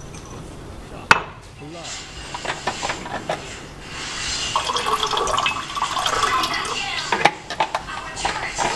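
Water poured from a plastic bottle into a mug for a couple of seconds. There is a sharp knock about a second in, and another shortly after the pour ends.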